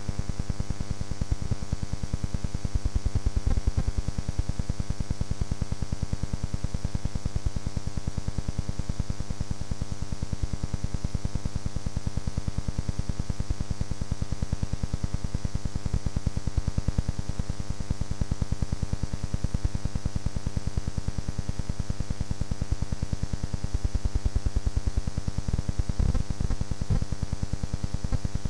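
Steady electrical buzz with a rapid, even ticking, unchanging in pitch, with a few slightly louder knocks near the start and near the end.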